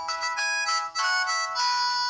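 O2 X2 mobile phone playing a polyphonic ringtone: a quick melody of synthesized notes, several sounding together.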